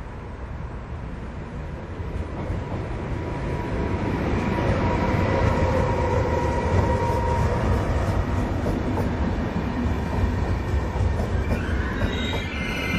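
FER E464 electric locomotive and its double-deck coaches passing at speed. A heavy rumble builds over the first few seconds as the train comes up, with a steady whine as the locomotive goes by. A high squeal from the wheels sets in near the end.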